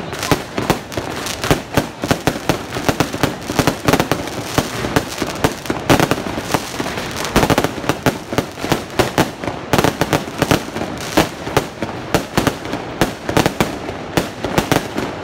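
Fireworks display going off in a dense, continuous barrage of bangs and crackles, several reports a second with no pause.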